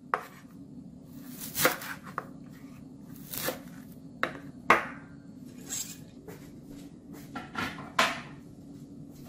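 A kitchen knife chopping a bunch of fresh dill on a wooden cutting board: separate, irregular knocks of the blade through the stems onto the board, roughly a second apart.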